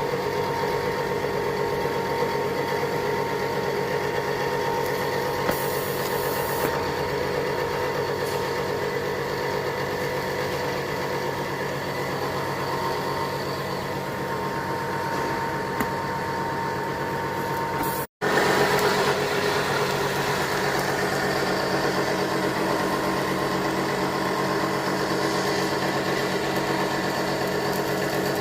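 Welding equipment running with a steady mechanical hum and buzz. The sound drops out for an instant about 18 seconds in, then carries on the same.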